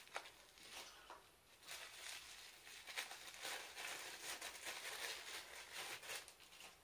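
Tissue paper crinkling and rustling in the hands as a small wrapped product is unwrapped, with a couple of light clicks in the first second and busier rustling from about two seconds in.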